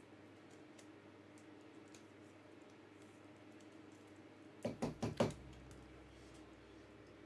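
Four quick knocks in a row, about halfway through, over a faint steady hum of room tone.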